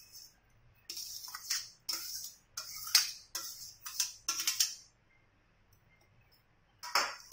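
A perforated steel strainer knocking and scraping against a bowl as chopped boiled eggplant and vegetables are scraped off it, a run of short scrapes and clinks. After a pause of about two seconds, one more clatter comes near the end.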